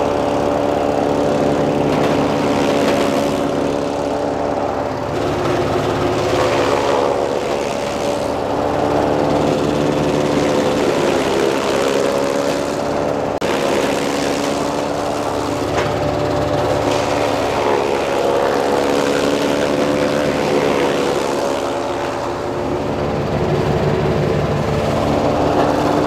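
Motorised chaff cutter chopping napier grass into fresh cattle feed, its motor running steadily throughout, the pitch dipping briefly now and then.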